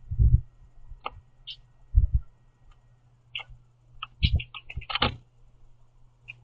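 A small bird pecking and hopping on a platform feeder right by the microphone: heavy low thumps a few times, with sharp ticks and taps that crowd into a quick flurry about four to five seconds in.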